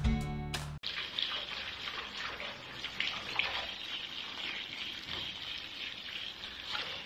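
Water running steadily into a bathtub, an even rushing hiss. Before it, a short bit of strummed guitar music cuts off under a second in.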